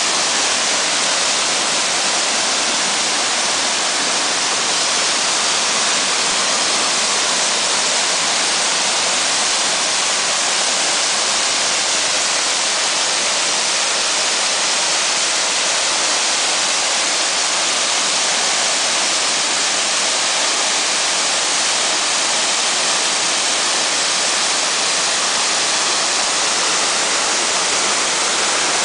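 Waterfall plunging into a rocky pool: a steady, loud, hissy rush of falling water.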